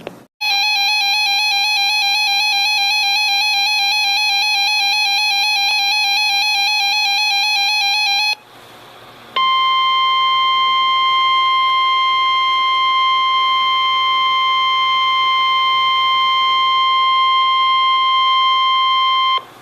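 Two electronic alert tones in sequence from an emergency broadcast. First, an alert tone with a rapid warble sounds for about eight seconds and stops. After a pause of about a second, the steady NOAA Weather Radio warning alarm tone (1050 Hz) holds for about ten seconds and cuts off abruptly.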